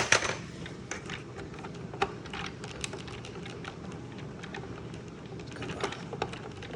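Scattered small plastic clicks and knocks as the Tyco Dagger RC car's adjustable stunt shifter is worked by hand toward the wheelie setting, with one sharp click at the start.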